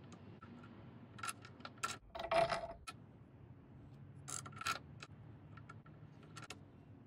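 Small steel parts being handled: a set screw and a square-tube locking sleeve worked on a spring post, giving a string of light clicks and taps, with a short, louder metallic scrape about two and a half seconds in.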